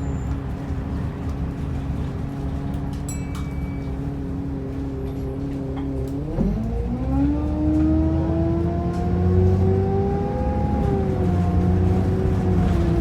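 Optare Versa single-deck bus engine heard from on board: it runs steadily at a low pitch, then from about six seconds in it pulls away and its whine rises in pitch and grows louder as the bus accelerates. A short high beep sounds briefly a few seconds in.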